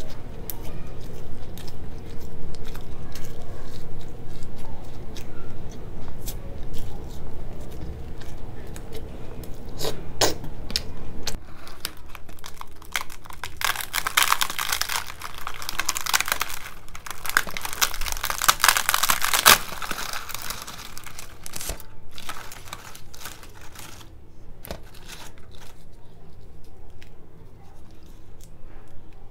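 Close-miked chewing, then from about halfway a large deep-fried puri being torn apart by hand: several seconds of crackly, crinkly tearing as the crisp shell breaks, followed by scattered small clicks as the pieces are handled.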